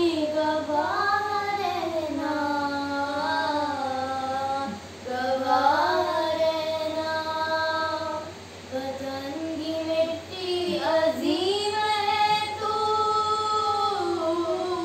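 Two young girls singing a Pakistani patriotic song in Urdu together, in long held notes that slide in pitch, with short breath breaks about five and eight and a half seconds in.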